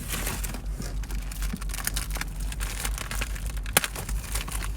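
Small clicks and rustles of cards and packaging being handled, with one sharper click near the end, over a steady low hum inside the parked car.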